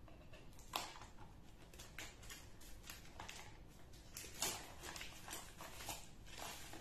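Knife slitting and peeling clear plastic shrink-wrap off a small cardboard box: faint, irregular scratches and crinkles, sharpest about a second in and again just past the middle.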